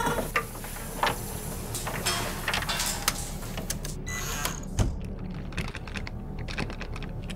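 A run of mechanical clicks and ticks over a steady low electronic hum, with a short high beep about four seconds in, as a door lock engages; then a few knocks as the locked doorknob is tried.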